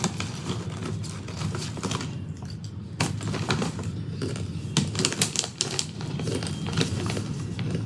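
Banana chips being bitten and chewed: irregular crisp crunches and crackles.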